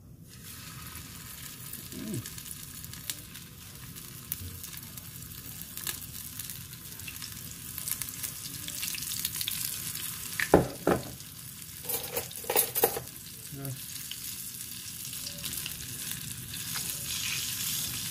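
Flour-coated pieces of tinned mackerel frying in hot oil in a small frying pan: a steady sizzle that starts as the first piece goes in, with a few sharp knocks about ten to thirteen seconds in.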